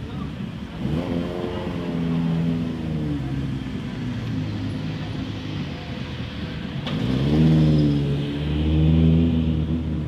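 A car engine revving up and falling back twice, about a second in and again around seven seconds in, the second time louder.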